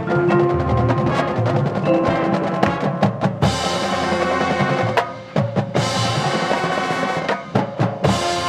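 Marching band playing a percussion-driven passage: drumline hits and rolls under sustained brass chords, with loud crashes about 3.5, 6 and 8 seconds in.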